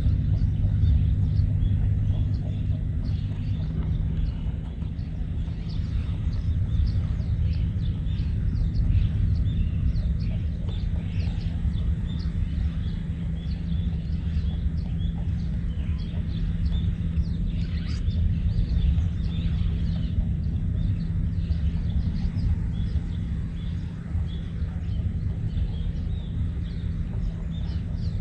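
A steady low engine-like drone, with many faint short high chirps scattered over it.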